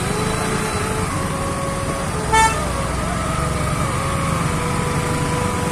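Steady running noise of a motorcycle being ridden in traffic, with one short vehicle horn beep about two seconds in.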